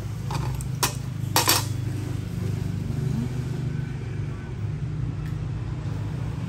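Steel pliers and other metal hand tools clinking as they are handled, three sharp clinks in the first second and a half, over a steady low rumble.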